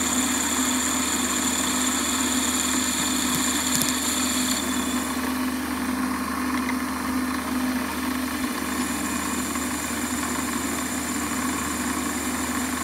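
Warco metal lathe running steadily as a 5 mm twist drill in the headstock chuck cuts a pilot hole in a quick-change tool post block, lubricated with cutting fluid and drilling smoothly. A high whine drops out about five seconds in and comes back about nine seconds in.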